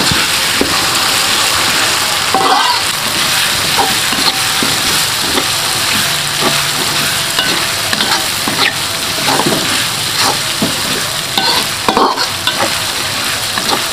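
Ground chili spice paste sizzling in hot oil in a metal wok, with a metal spatula stirring and scraping it against the pan in short, irregular strokes: the paste being sautéed until fragrant.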